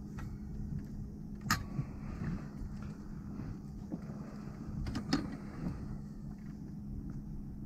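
Steady low hum and rumble with wind on the microphone aboard a small fishing boat, broken by a sharp knock about one and a half seconds in and a quick pair of knocks about five seconds in.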